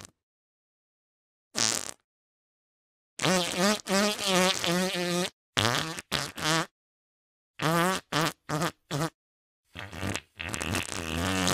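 Comedic fart sound effects from a meme audio track: a string of pitched, wavering farts, some short and some drawn out.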